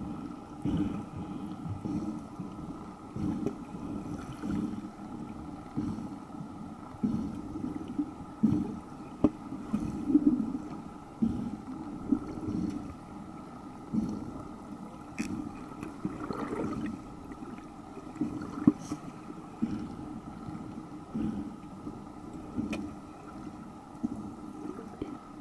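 Underwater sea ambience picked up by a submerged camera: water sloshing and rushing, with irregular low thumps about once a second and a faint steady hum. A few sharp clicks stand out, one at about 15 seconds and another near 23 seconds.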